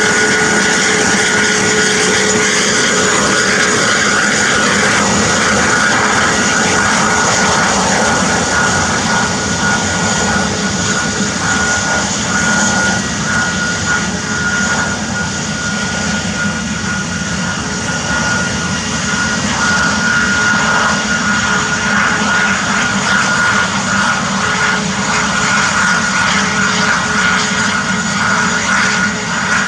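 Airbus A321neo's CFM LEAP-1A turbofan engines running at taxi power: a steady jet whine with a constant high tone over the engine noise.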